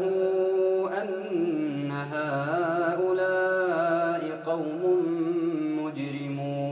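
A man's voice reciting the Quran in slow, melodic tajwid, holding long drawn-out notes with wavering, ornamented pitch. There are brief breaks for breath about a second in and again near the end.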